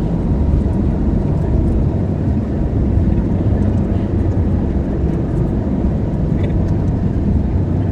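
Steady noise of a jet airliner heard from inside the cabin: engine and airflow noise, heaviest in the low end.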